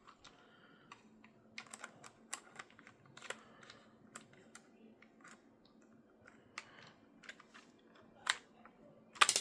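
Scattered small clicks and taps of a small screwdriver and fingers working the plastic shell of a Nintendo Switch Pro Controller. Near the end comes a louder clatter as its tiny screws come loose and spill out.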